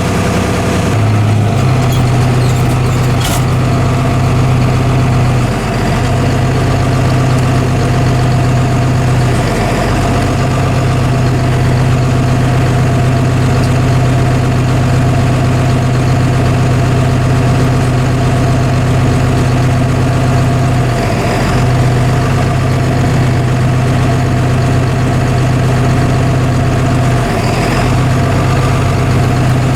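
Heavy farm machinery engine running steadily at a constant speed, its pitch stepping up slightly about a second in.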